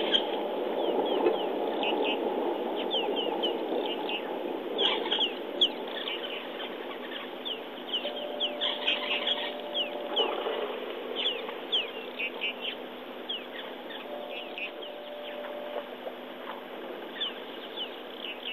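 Bush birds chirping and calling: many short, quick falling chirps scattered throughout, with a faint steady hum coming in twice.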